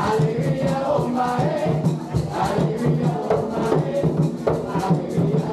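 Hand drums, djembes among them, played together in a steady fast rhythm, with voices chanting along.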